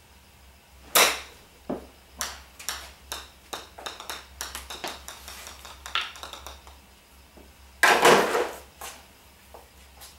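Golf practice into a net: a sharp club-on-ball crack about a second in, then a run of light clicks and taps as a golf ball bounces and rolls on the concrete floor, and a second, louder clatter about eight seconds in.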